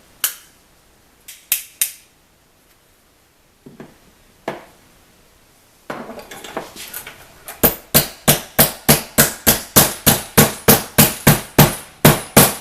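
Hammer striking a thin sheet-metal bracket to bend it. A few separate knocks come first, then from about six seconds in a steady run of loud blows, roughly three to four a second.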